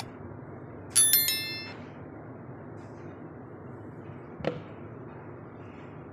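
A bright electronic chime sound effect of the subscribe-button animation: several quick ringing notes that die away within about a second. About four seconds in a single sharp knock, over a steady low background hiss.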